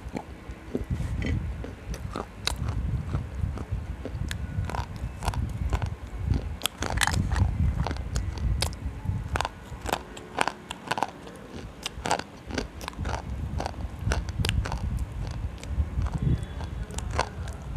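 Slate pencils being bitten and chewed right at a clip-on microphone: many sharp, irregular crunching snaps over a low chewing rumble.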